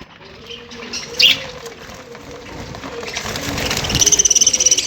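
Pet birds chirping while feeding: one sharp chirp about a second in, then a fast run of high chirps that builds up near the end.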